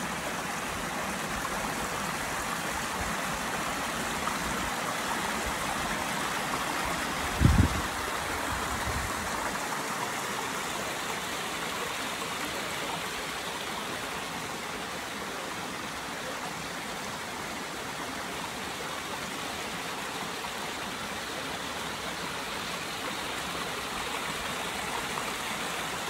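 Steady rushing noise with one brief low thump about seven and a half seconds in.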